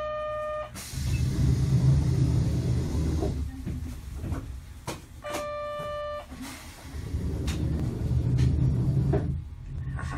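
Low rumble inside a Sapporo streetcar, coming and going in two spells of about three seconds each. Two short, flat, beep-like tones cut in: one at the start, and another, about a second long, roughly five seconds in.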